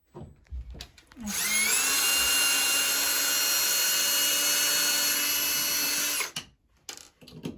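Power drill spinning up with a rising whine, then running steadily for about five seconds as it backs out the outlet's mounting screw, then stopping.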